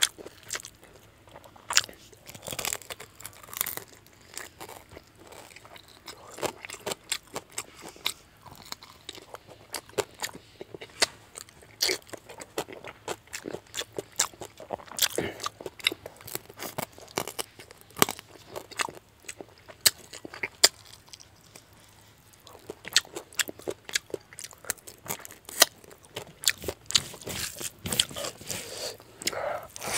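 Close-up chewing and crunching of fried fish head curry with rice eaten by hand, with many irregular sharp clicks and crunches.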